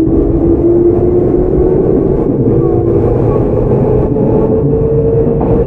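Tokyu 9000 series electric train running, its early Hitachi GTO-VVVF traction equipment whining in two tones that climb slowly in pitch as the train gains speed, over a steady rumble of wheels on rail.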